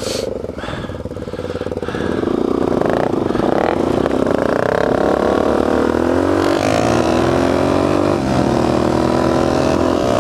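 Suzuki DR-Z400S single-cylinder four-stroke dirt bike engine pulling away in sand and accelerating. The revs climb and get louder about two seconds in, with several brief dips as it shifts up through the gears.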